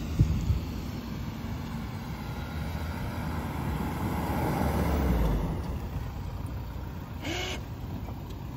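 Modified ATV's engine running as it is ridden off-road, the rumble swelling to a peak about five seconds in and then easing off. A couple of sharp knocks sound right at the start.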